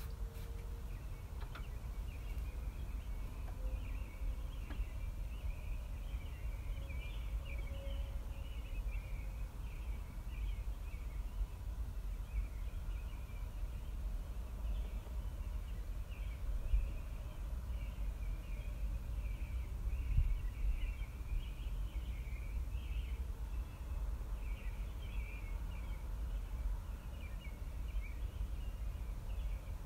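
Steady background ambience: continuous high-pitched chirping over a low rumble.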